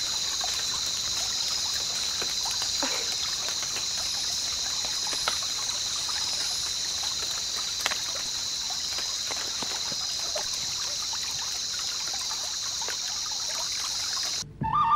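Steady high-pitched outdoor drone with a faint hiss beneath and a few scattered faint clicks and taps, cutting off abruptly near the end.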